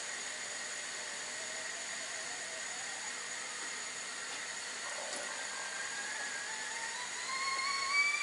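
Stainless-steel stovetop whistling kettle coming to the boil: a steady hiss of steam, then about five seconds in its whistle sets in and rises in pitch, getting louder near the end.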